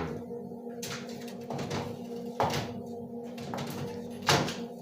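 A steady low hum, with two short, sharp knocks: the first about two and a half seconds in, the second near the end.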